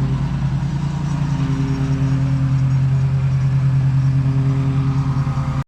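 Small lawn mower engine running steadily at a constant speed, a loud low hum with a slight regular pulse.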